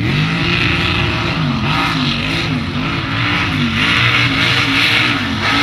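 Mega mud truck's engine revving hard, its pitch rising and falling over and over as the driver works the throttle across the mud track.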